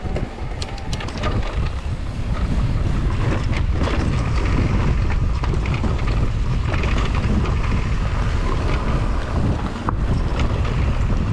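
Wind rushing over the microphone of a camera on a Husqvarna electric mountain bike being ridden along a dirt forest trail. It is mixed with tyre noise and sharp clicks and rattles from the bike over rough ground, most of them in the first couple of seconds.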